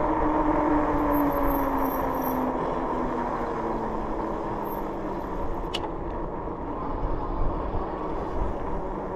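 The 26 × 4-inch fat tires of a Rad Rover e-bike hum as it rolls on pavement under a steady rushing noise. The hum falls slowly in pitch as the bike slows down. A single sharp click comes about six seconds in.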